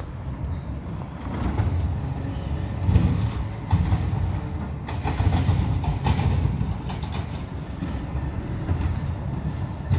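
Peterbilt 520 McNeilus ZR garbage truck's engine running with a low rumble that swells and eases, with a few sharp knocks about three to six seconds in.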